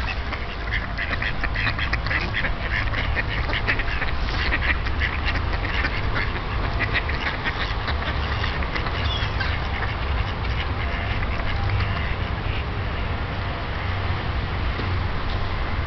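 A group of mallards quacking, many short calls overlapping, busiest in the first ten seconds and thinning toward the end, over a steady low rumble.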